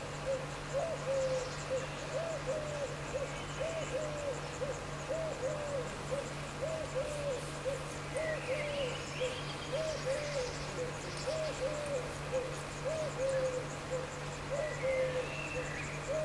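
A steady run of short, low hooting calls, about two a second and sometimes overlapping, over a steady low hum.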